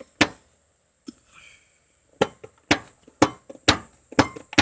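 A series of sharp knocks or taps: two close together at the start, then after a pause a steady run of about two a second from about halfway, coming slightly quicker near the end.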